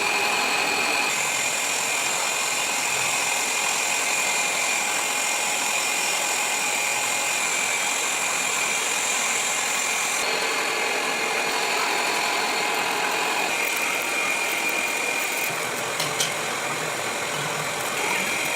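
Workshop machinery running steadily, a continuous mechanical noise with a few high, steady whining tones that switch abruptly several times as one machine sound gives way to another.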